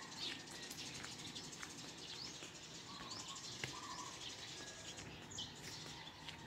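Birds chirping in scattered short, high calls over faint steady background noise.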